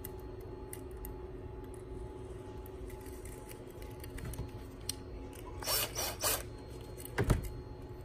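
Handling noise from a DPDT toggle switch and its hookup wires: faint rustles and small clicks, a few louder scrapes about two-thirds through, and one sharp knock near the end.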